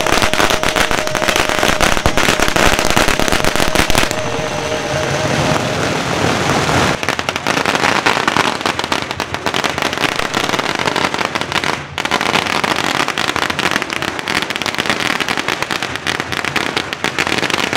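Firecrackers going off in rapid, dense, continuous volleys of sharp pops. The crackling shifts in loudness a few times but never stops.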